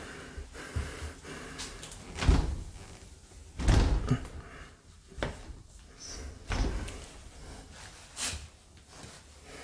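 A door being handled: about five dull thumps and knocks as it is pushed and moved, the loudest two to four seconds in.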